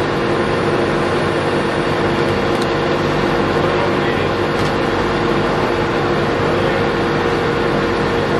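1942 Niles vertical lathe running: a steady mechanical hum with a constant whine from its gear drive.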